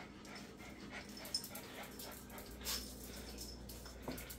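Chihuahua–Jack Russell mix dog making faint small sounds while begging for treats, with soft ticks and one brief falling whimper about four seconds in.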